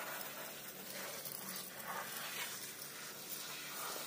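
Water from a salon basin's hand-held shower sprayer hissing and splashing steadily onto wet hair and foil packets as hair colour is rinsed out.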